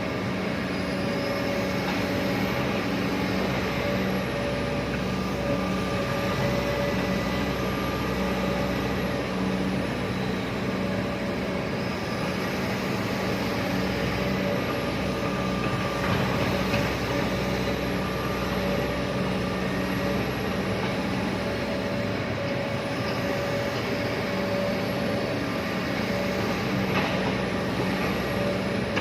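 Excavator's diesel engine running steadily, with a faint higher whine that comes and goes.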